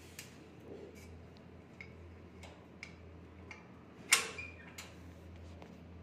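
Irregular sharp clicks and taps, about a dozen, the loudest about four seconds in, some followed by a faint short chirp.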